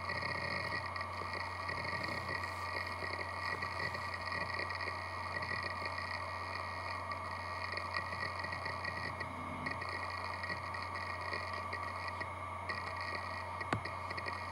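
PowerBook G4 Titanium running through its Mac OS 9 boot: a steady low hum under a higher, flickering whir that drops out briefly about twelve seconds in, with a single sharp click near the end.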